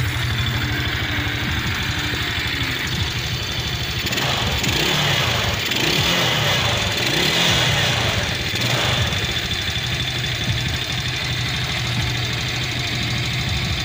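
Chinese 110 cc four-stroke motorcycle engine idling, revved up with the throttle a few times around the middle with rising and falling pitch, then settling back to a steady idle. The engine is being test-run with new clutch discs fitted.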